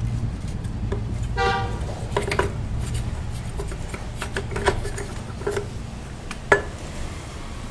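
Metal clinks and taps as a Honda Activa's clutch assembly and drive belt are worked onto the splined shaft, the sharpest knock near the end. A short vehicle horn toots about a second and a half in, over a low background rumble that fades.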